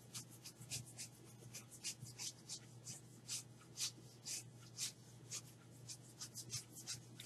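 Raccoon chewing dry dog food: faint, irregular crisp crunches, several a second, over a steady low hum.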